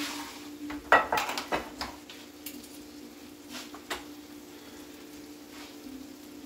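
Metal tongs and a glass baking dish clinking: a quick run of sharp clinks about a second in and a few more near the middle. Under them, chicken sizzling as it sautés in a frying pan, with a steady low hum.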